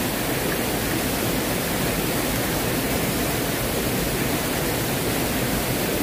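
Mountain stream swollen after rain, rushing steadily over rocks.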